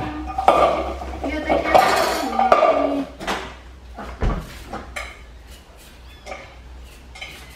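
Dishes and a metal bowl clinking and clattering as they are handled at a kitchen counter. There are sharp, scattered clinks through the second half, and a voice in the first few seconds.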